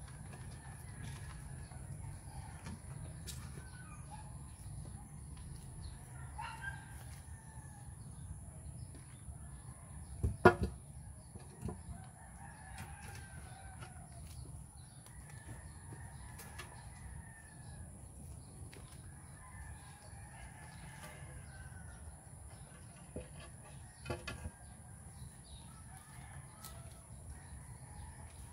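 Roosters crowing again and again, a call every few seconds, over a steady low rumble. One loud knock about ten seconds in, with a smaller one later.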